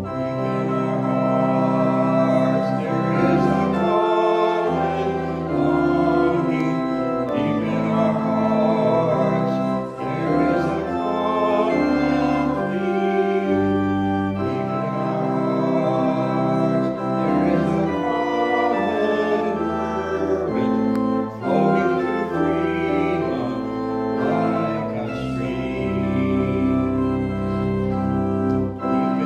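Organ playing slow music in held chords, the notes changing about once a second over a moving bass line.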